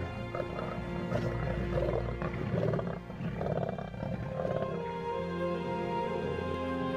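Lions growling while they feed together on a carcass, the growls coming in rough bursts through the first half, under held orchestral film music.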